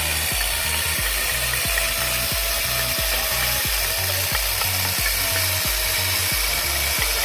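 A power tool running steadily with a dense, hissing noise, over background music with a steady beat.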